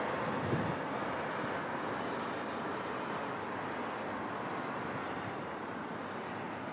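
Fireworks heard from a long way off: a single muffled boom about half a second in, over a steady hum of distant city noise.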